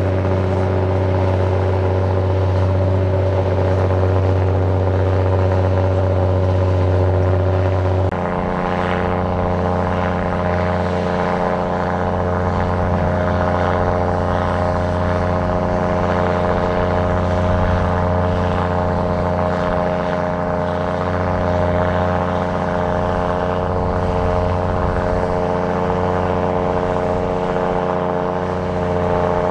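Heavy earthmoving machinery's engine running at a steady speed. About eight seconds in, it switches suddenly to a different steady engine note.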